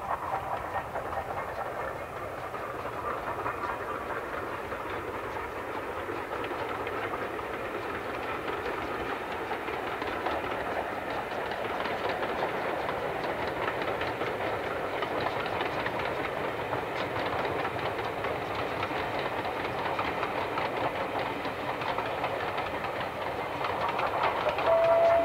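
Steam-hauled passenger train running past at a distance, a steady rumble of wheels on the rails that slowly grows louder. Near the end a steam whistle starts to sound.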